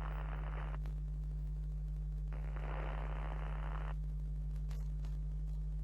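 A steady low electrical hum at an even level, with faint hiss coming in briefly near the start and again from about two to four seconds in.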